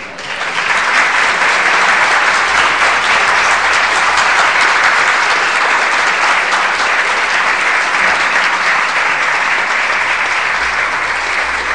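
Audience applauding after a song, swelling within the first second, holding steady, and easing slightly near the end.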